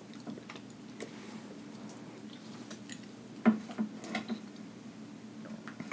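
Scattered small clicks and taps as a grilled sausage is handled and dipped into a plastic cup of cheese sauce, with a sharper tap about three and a half seconds in and a few more just after.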